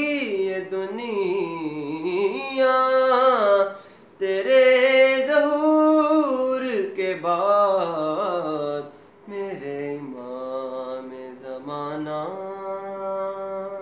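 A man singing a devotional manqabat solo, without accompaniment, in long held notes that glide up and down, with short pauses for breath about four seconds in and again around nine seconds.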